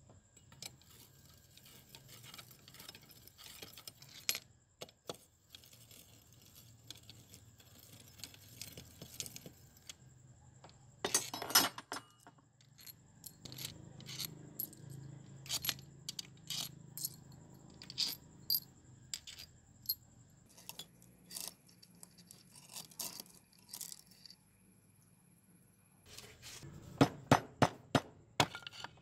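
Metal engine parts and hand tools clinking, tapping and scraping as a greasy old motorcycle engine is dismantled: scattered sharp clicks, a louder clatter about eleven seconds in, and a quick run of sharp knocks near the end as the crankcase halves are worked apart.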